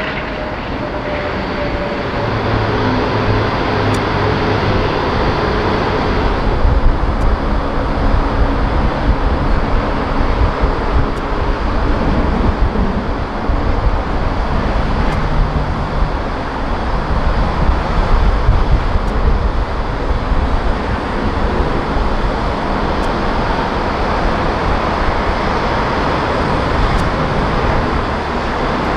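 Airbus A380 jet engines running: a loud, steady rumble of the four-engine airliners taxiing and landing.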